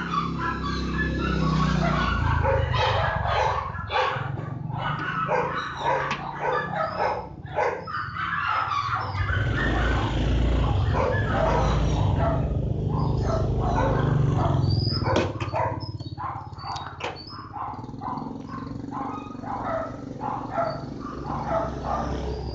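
Dog barking: many short barks in quick runs with brief pauses between them, over a steady low rumble.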